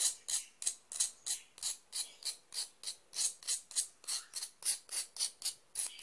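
Knife blade scraping the surface of a cuttlebone in short, even strokes, about three a second, scraping off the dirt to clean it.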